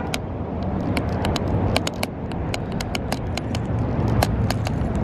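Steady rumble of road traffic, with irregular sharp ticks about three or four a second.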